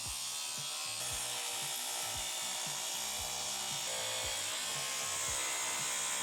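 A power tool cutting steadily through the steel tank of an old water heater, a continuous rasping noise, with background music with a steady beat underneath.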